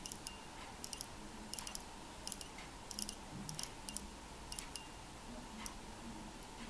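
Crown of an IWC Ingenieur Mission Earth being turned between the fingers, giving small sharp clicks, often in pairs or short runs, at an uneven pace.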